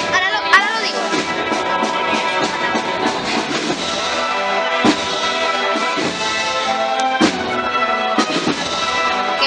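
A processional brass band playing a Holy Week march: sustained brass chords with occasional drum strokes.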